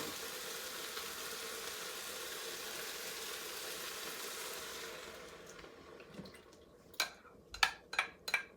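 Sauteed vegetables sizzling in the multicooker pot as coconut milk goes in, the sizzle dying away after about five seconds. Then a run of sharp knocks: a spoon tapping and scraping the last of the coconut milk out of the can.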